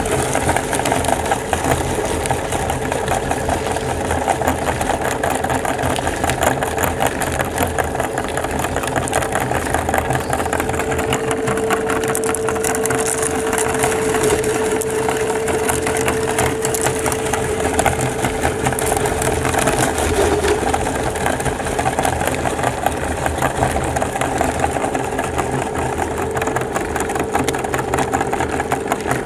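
Electric meat grinder running with a steady motor hum while it crushes hard mint candies, a continuous dense crunching and crackling.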